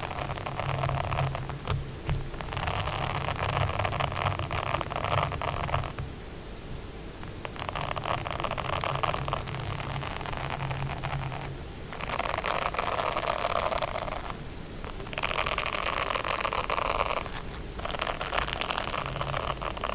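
ASMR scratching: a series of bouts of rapid scratching on a surface, each lasting one to four seconds, with short pauses between them.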